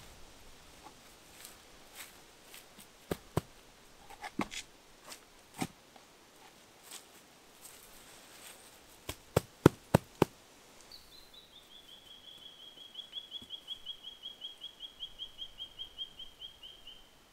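Rocks knocking and scraping against each other as they are set in place by hand, with a cluster of sharp knocks about nine to ten seconds in. From about eleven seconds in, a bird calls a long, quick run of repeated high notes that fall slightly in pitch.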